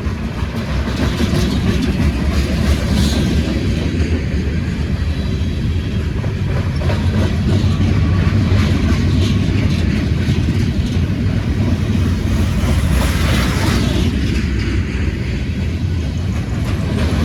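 Freight train passing close by: a steady low rumble of freight cars rolling over the rails, with some clatter of the wheels.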